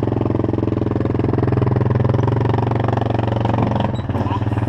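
Quad bike (ATV) engine idling close by, a steady, even running note with rapid regular firing pulses.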